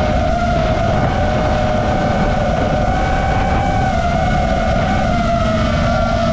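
FPV quadcopter's four brushless motors (Lumenier 2407, 1700kv) spinning 5.1-inch props, a steady whine that wavers slightly in pitch with throttle, over a loud low rumble of wind and prop wash on the onboard camera.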